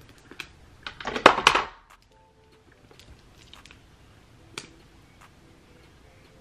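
A short burst of clattering and clicking from small plastic makeup items being handled, about a second in. A few isolated light clicks follow, one clearer about four and a half seconds in.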